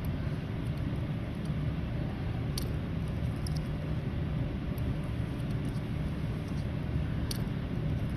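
Steady low background rumble, with a few faint light clicks, two of them clearer than the rest.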